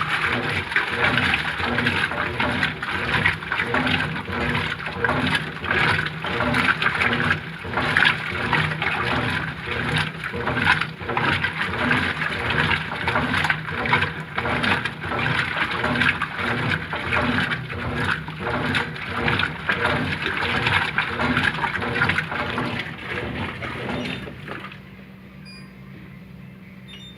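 Brastemp Ative 11 kg top-loading washing machine agitating a load in water: rhythmic churning and sloshing with a repeating low pulse from the drive. About three seconds before the end the agitation stops, leaving a quieter steady hum.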